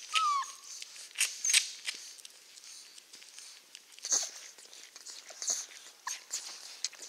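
Czechoslovakian wolfdog puppies suckling at their mother's teats: a scatter of short sucking and smacking clicks, with one short falling whimper from a puppy just at the start.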